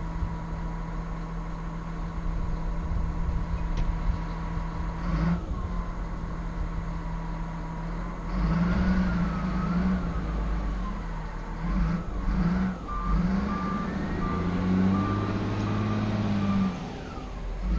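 Cat 966G wheel loader's diesel engine running, then revving up and down as it works from about eight seconds in. Its reversing alarm beeps steadily for about four seconds in the second half.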